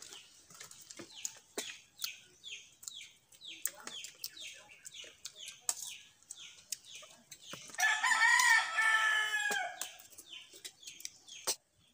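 A rooster crows once, about eight seconds in, the loudest sound here, over a run of short, quick, high chirps repeating throughout. Spoons click now and then against steel plates.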